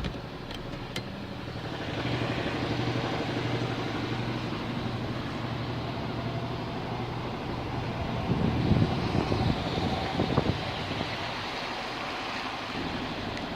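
Running noise from a 2014 Audi A4 on the move: a steady low hum under road noise that grows about two seconds in, with louder uneven surges between about eight and ten seconds in.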